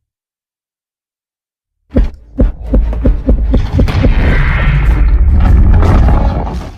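Cinematic destruction sound effect: two heavy booms about two seconds in, then a fast run of deep thuds, about five a second, over a loud rumble with crumbling, crackling debris that builds. It cuts off abruptly.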